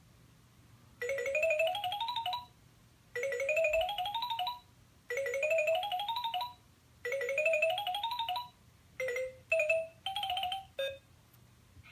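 LeapFrog Chat & Count toy cell phone playing an electronic jingle from its speaker: a quick rising run of beeping notes, repeated four times with short gaps, then a few short single notes near the end.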